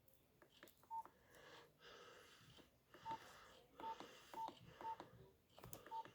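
Nokia 1280 keypad tones: six short beeps, all at the same pitch and irregularly spaced, as the phone's keys are pressed, with faint key clicks between them.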